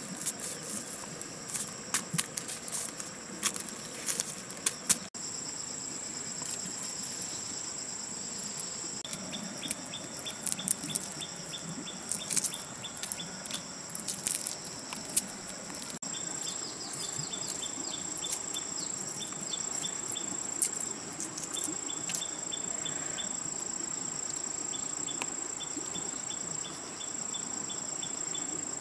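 Sharp crackling clicks of a boiled egg's shell being cracked and peeled by hand. After about five seconds they give way to a steady high-pitched insect chorus, broken by repeated trains of quick ticking chirps, with a few more peeling crackles.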